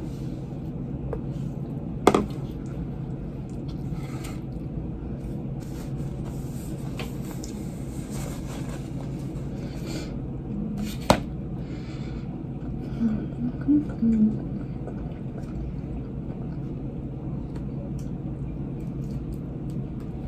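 Steady low room hum, broken by two sharp knocks of a plastic bowl or dishes against the table, about two seconds in and about eleven seconds in. A few brief low voice sounds come a little later.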